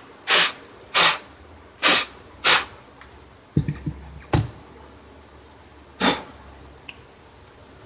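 A person blowing short, sharp puffs of breath into a laptop's open keyboard bay to clear out dust: four puffs in the first three seconds and one more about six seconds in. A dull bump and a click come about halfway.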